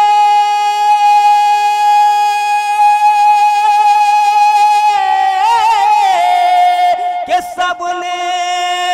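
A male naat reciter sings unaccompanied, holding one long high note for about five seconds. He then breaks into a quick ornamented run and settles on a slightly lower held note.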